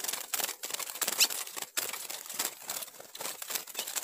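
Azulão (ultramarine grosbeak) fluttering and scrambling in alarm inside its cage as a snake attacks, a rapid irregular clatter and rustle of wings against the bars, with a few short high chirps.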